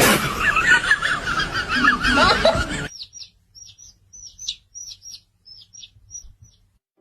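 Bird chirping. It starts as loud, fast warbling chatter over background noise that cuts off about three seconds in. About a dozen short, high chirps follow, spaced out over the next few seconds.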